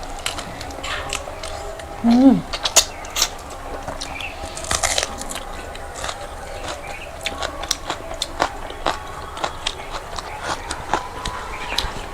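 Close-up sounds of people eating rice and curry by hand: scattered chewing, lip smacks and small clicks. A brief falling vocal sound about two seconds in.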